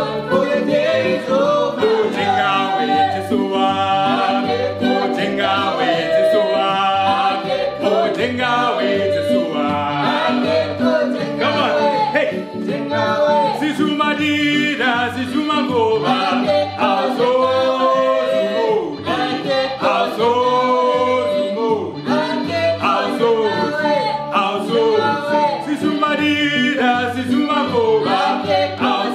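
Small gospel group singing praise songs in call-and-response, a lead voice answered by the others in harmony, over a drum keeping a steady beat.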